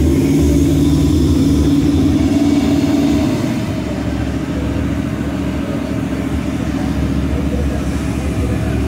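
A car engine running loudly, a steady pitched drone that eases off a little about three seconds in.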